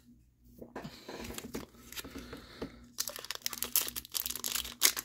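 Foil Pokémon Brilliant Stars booster pack crinkling as it is handled, then torn open across the top from about three seconds in, the crackling growing louder and denser.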